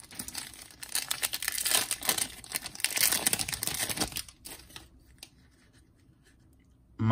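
Plastic wrapper of a Panini Donruss soccer trading-card pack being torn open and crinkled by hand, for about three seconds from about a second in.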